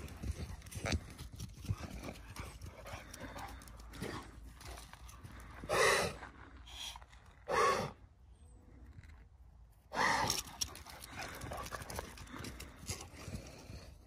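Hooves of a horse and donkey and the paws of a running Boxer dog thudding and clip-clopping on the ground in an irregular patter. Three louder short animal calls stand out, about halfway through, a second and a half later, and again a few seconds after that.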